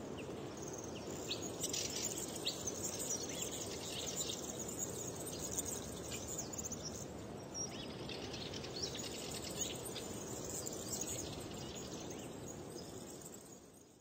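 Outdoor nature ambience: a steady hiss of background noise with scattered short bird chirps, fading out near the end.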